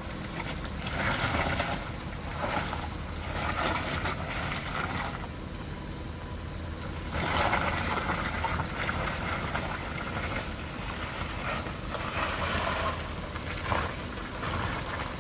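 Road traffic: heavy vehicle engines giving a steady low rumble, with about five swells of rushing noise.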